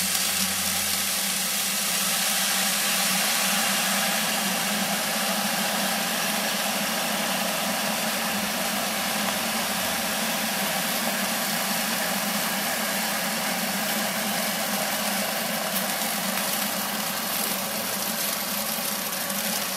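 Water poured into the hot base of a stainless-steel gas MultiKai hangi cooker, sizzling steadily as it flashes into steam. This is the water that starts the steaming stage.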